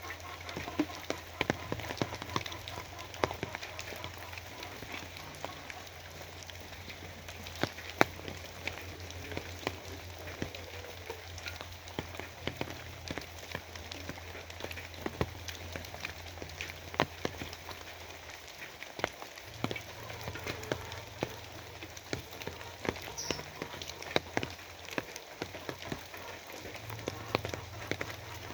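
Steady rain falling, with many separate drops tapping and dripping sharply over the constant hiss of the downpour.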